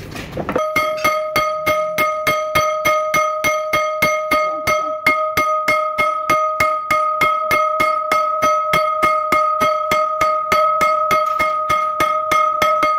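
Hammer striking metal on a dismantled truck gearbox in rapid, even blows, about four a second. Each blow rings with a clear metallic tone that carries on between the strikes.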